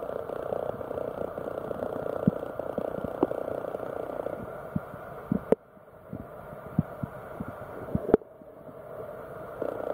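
Muffled underwater sound picked up by a waterproof compact camera held in a rockpool: a steady low water rush with scattered soft clicks and knocks. Two sharper knocks come about halfway through and near the end, each followed by a brief quieter spell.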